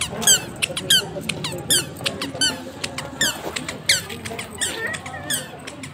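A toddler's squeaky shoes give a short falling squeak at each step as she walks, about two squeaks a second in an uneven rhythm.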